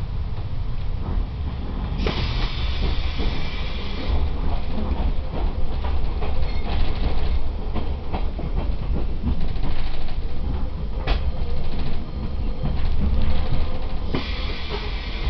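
SNCF passenger train running, heard from inside the carriage: a steady low rumble with the wheels clacking over rail joints and points. A hiss comes in about two seconds in and again near the end.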